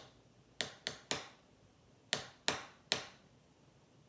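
Tarot cards being knocked against a tabletop, about seven sharp taps in two quick runs of three, each fading quickly.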